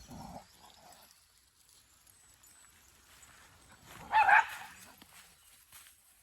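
A small dog barks once, a short high bark about four seconds in, against quiet outdoor background.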